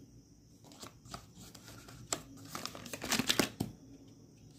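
Paper and plastic packaging rustling and crinkling as the phone's clear jelly case and paper inserts are lifted out of the box. It comes as a scatter of light crackles and clicks about two seconds in, heaviest around three seconds.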